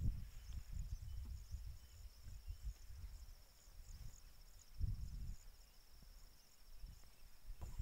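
Insects trilling steadily in a high, finely pulsing buzz over grassland, with a few faint chirps above it and an uneven low rumble underneath that swells briefly about five seconds in.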